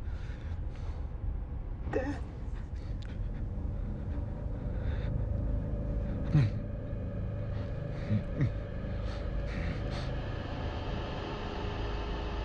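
Steady low rumbling drone of film ambience, with a few short vocal gasps that fall in pitch, about 2, 6 and 8 seconds in.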